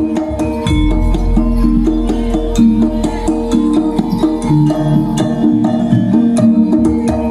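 Live Javanese traditional music: drums and struck pitched percussion playing a steady, busy rhythm over ringing held tones.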